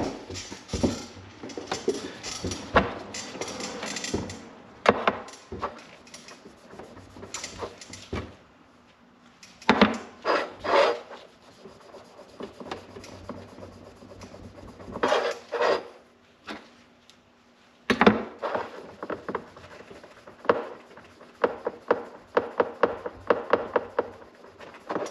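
Hand scrubbing and rubbing on a snowmobile clutch part being cleaned. It comes in irregular runs of quick strokes with pauses between them, and a few sharp knocks as parts are handled.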